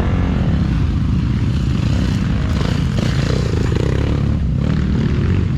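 Enduro dirt bike engine running steadily under way.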